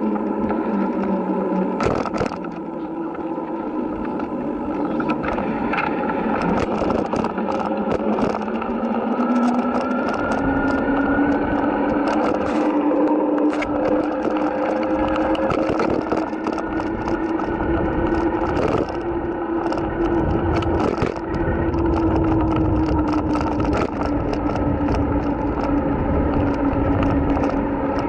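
Electric bike's motor whining steadily, its pitch rising over the first ten seconds and then holding. Many small rattles and clicks from the loosely held handlebar camera and the wire basket run over it, with a low rumble of wind and tyres.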